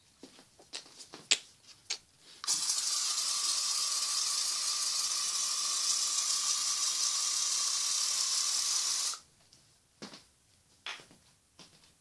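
Aerosol smoke-detector test spray hissing in one long steady burst of about six and a half seconds, starting a couple of seconds in, with small handling clicks before and after it.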